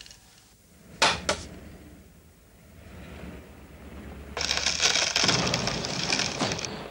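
Two sharp clicks about a second in. Then a hiss rises and turns into a dense crackling, rattling noise for about two and a half seconds, which cuts off suddenly.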